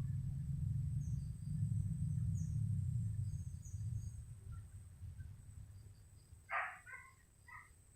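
Outdoor ambience: a low rumble that fades out over the first half, under faint high bird chirps. Near the end comes a short, louder bird call followed by a few chirps.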